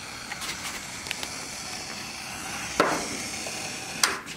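Steady hiss of workshop background noise, with a dull knock just under three seconds in and a sharp click near the end.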